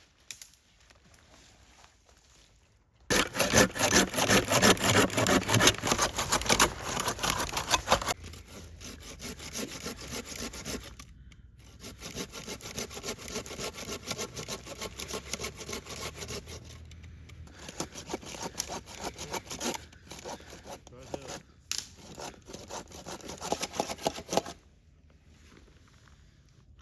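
Hand saw cutting through dry wood with quick repeated strokes, loud for several seconds, then quieter strokes with a brief pause.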